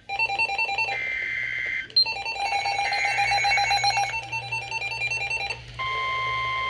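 Weather radio alert: rapid repeating electronic beeps at several pitches, broken by two buzzy bursts of data tones about a second long each. Near the end, a steady single-pitched alarm tone starts and holds, the warning tone that comes before a broadcast weather warning.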